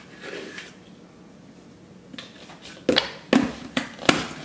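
A scoop of pre-workout powder poured into a plastic shaker bottle with a brief soft hiss, then several sharp plastic clacks and knocks in the last second and a half as the supplement tub and its lid are handled.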